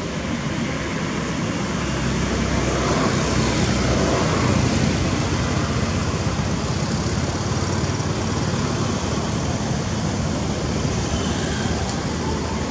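Steady rushing background noise with a low rumble, growing louder a few seconds in and then settling.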